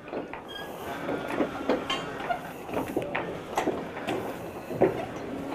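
Irregular light knocks and clatter over a steady background hiss.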